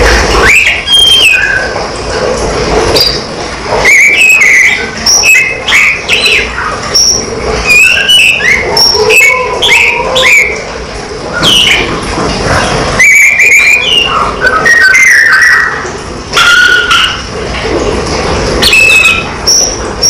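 Caged teledekan songbird singing runs of short clear whistles and slurred chirps, with brief pauses between phrases, over steady background noise.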